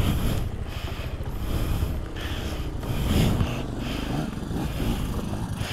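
Single-cylinder adventure motorcycle engine running at trail speed over rocks, its revs rising and falling a little, heard from the rider's helmet camera with wind noise over it.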